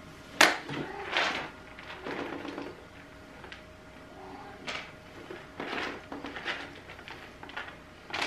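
A series of short, sharp rustles and knocks as a plastic pet-food package is handled, the first one the loudest, over a faint steady hum.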